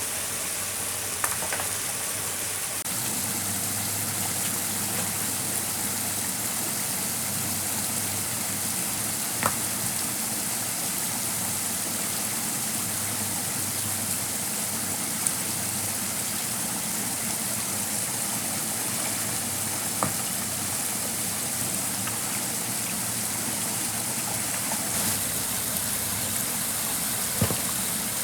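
Stream water flowing and gushing steadily, with a few sharp knocks scattered through it.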